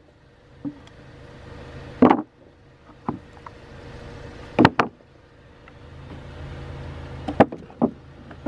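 Wooden flashboards and a metal hook knocking against a water-control bulkhead as the boards are handled and pulled out: several sharp knocks a second or two apart, over a steady low rumble.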